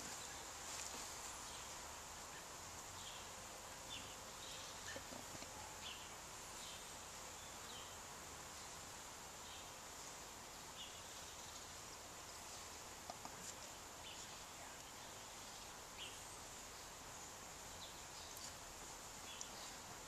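Quiet outdoor ambience: a steady high-pitched insect drone with scattered short bird chirps.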